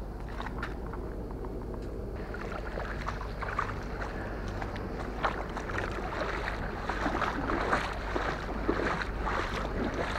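Footsteps on wet sand, then splashing through ankle-deep water while wading. Many small sharp steps and splashes, growing denser and a little louder after about two seconds.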